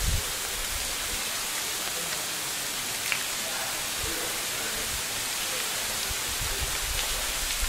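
Steady, even outdoor hiss, with a few low buffets of wind on the microphone at the start and near the end.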